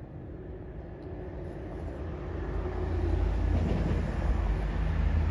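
Distant jet rumble of an Airbus A350-1000's Rolls-Royce Trent XWB engines as it climbs out after takeoff, a deep roar that grows louder about two seconds in and then holds steady.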